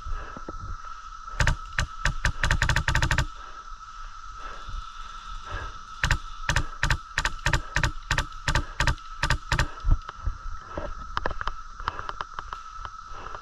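Airsoft gun firing: a quick burst of shots about two seconds in, then a string of single shots at about three a second.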